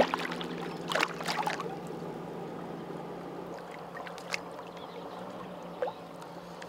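A hooked fish splashing and thrashing at the water's surface beside the boat: a sharp splash at the start and a couple more about a second in, then only soft water sounds with a couple of faint clicks.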